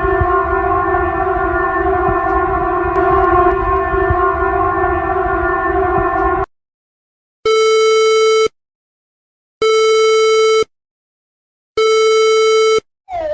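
Emergency-alert-style alarm tones: a loud, steady, buzzy alarm tone that cuts off suddenly after about six and a half seconds, followed by three one-second beeps about two seconds apart.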